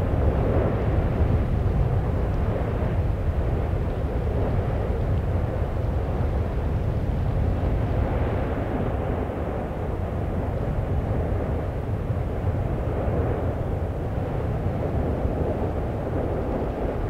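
Steady low roar and rumble of an erupting Icelandic volcano's vent, even throughout with no separate blasts.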